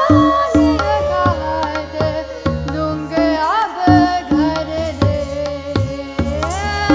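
Indian classical ensemble music: tabla playing a steady rhythm, its bass drum giving deep strokes that bend in pitch, under a melody that glides between notes.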